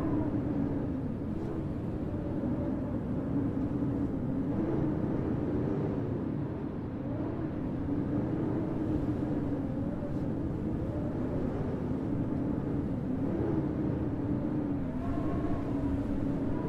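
Howling wind in a snowstorm, its pitch slowly wavering up and down over a steady low rumble.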